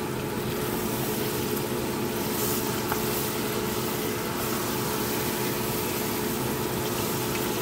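A steady machine hum, as from a running fan or air-conditioner motor, over faint bubbling from a saucepan of adobo simmering on a gas stove, with a wooden spatula stirring it.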